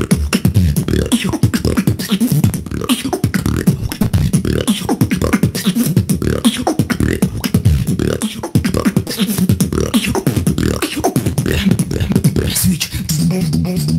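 Solo beatboxing: a fast, dense run of vocal kick, snare and click sounds mixed with hummed low bass notes, with a longer held bass tone near the end.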